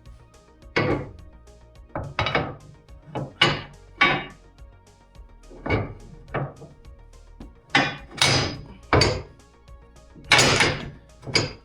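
About a dozen irregular knocks and clunks of parts and tools being handled during work on a side-by-side, some of them short and sharp, others longer scraping rattles, over background music.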